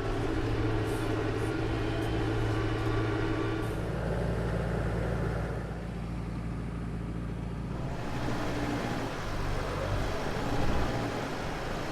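Compact diesel tractor engine running steadily under way as the tractor reverses and drives; the engine note shifts about four seconds in.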